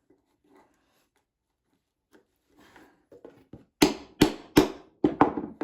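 Four quick, sharp hammer blows on the wooden toolbox near the end, about two or three a second, while working at a small nail that holds a board, after some quiet handling.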